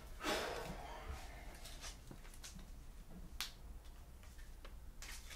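Basketball trading cards being handled: a short swish about a quarter second in, then scattered faint clicks as the cards are flipped.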